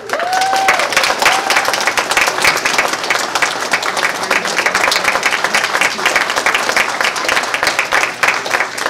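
Wedding guests applauding the couple's first kiss, steady dense clapping with a couple of short whooping cheers in the first second or so.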